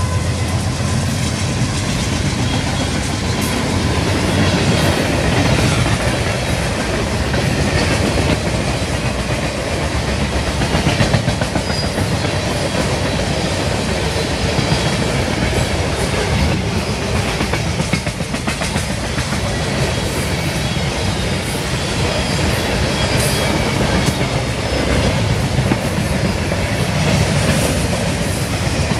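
Freight train cars (boxcars and refrigerator cars) rolling past at close range, steel wheels on the rails making a loud, steady rolling noise.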